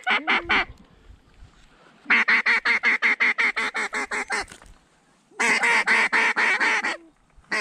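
Duck call blown close by in rapid runs of even quacks, about eight a second: a few quacks at the start, a long run about two seconds in, and a second run after a short pause.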